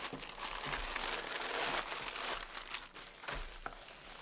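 Plastic packaging crinkling and rustling as a mail parcel is unwrapped by hand. The crinkling is busiest for the first three seconds and thins out near the end.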